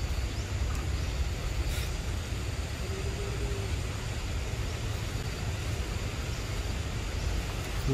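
Steady outdoor background noise with a low rumble underneath, and a faint brief click or chirp about two seconds in.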